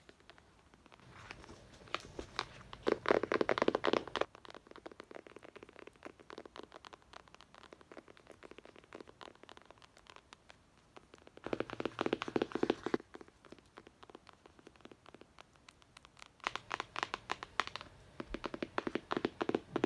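Rapid scratching and tapping on a book, heard as a dense stream of small quick strokes. It comes in louder bursts from about one to four seconds in, briefly around twelve seconds, and again from about sixteen seconds on, with fainter scratching in between.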